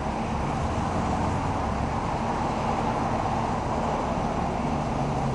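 Steady road traffic noise with a low engine hum, unchanging throughout.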